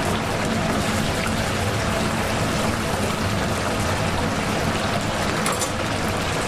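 Battered chicken pieces deep-frying in a large vat of hot oil: a steady, dense sizzle of bubbling oil, with a low hum underneath.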